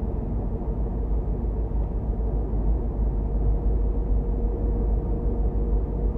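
Car driving along a city street: a steady low rumble of engine and road noise, with a faint constant hum over it.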